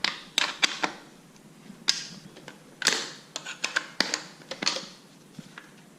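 Irregular sharp clicks and knocks of hard parts being handled while a part is taken off a motorcycle seat, some ringing briefly.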